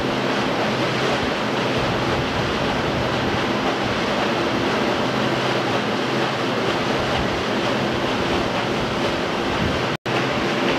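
Wind noise on the microphone and the rush of river water from a moving boat, over a low steady hum. The sound cuts out for an instant near the end.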